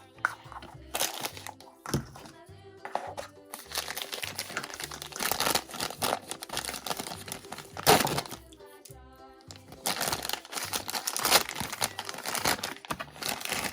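Plastic toy packaging crinkling as the parts of a toy doll are unwrapped from a plastic capsule ball, with one sharp plastic crack about eight seconds in, over background music.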